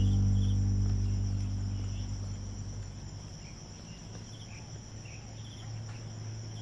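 Background music fades out over the first couple of seconds, leaving the steady, high-pitched drone of insects such as crickets or cicadas, with scattered short chirps over it.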